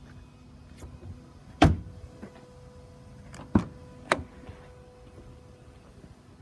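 A few sharp clicks and knocks of a Nissan hatchback's door being handled and opened, the loudest about a second and a half in and two more about two seconds later, over a faint steady hum.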